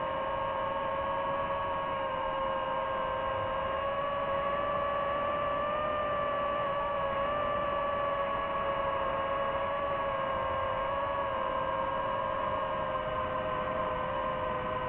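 DJI FPV quadcopter's motors and propellers whining at a steady pitch in flight, several tones at once over a steady hiss, rising slightly about six seconds in.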